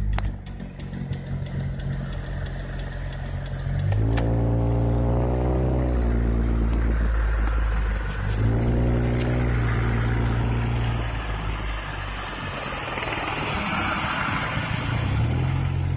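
Car engine and road noise heard inside the cabin. The engine note rises and then eases off twice, about four seconds in and again about eight seconds in, as the car pulls forward in slow traffic.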